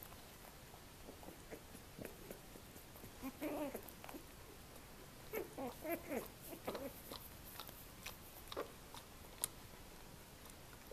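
Three-week-old Australian Terrier puppies whimpering and grunting while they nurse, in two short bouts, one about three seconds in and another in the middle. Soft scattered clicks and smacks of suckling run between the calls.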